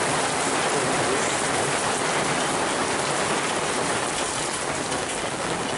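Heavy rain from a hurricane rain band pouring down steadily in a dense, even hiss, easing slightly near the end.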